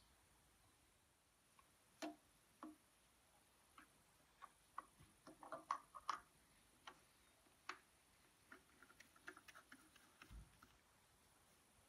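Faint, irregular clicks and taps of a new oil filter being handled and screwed onto a Rotax 914 engine by a gloved hand, busiest about halfway through, with a soft low thump near the end.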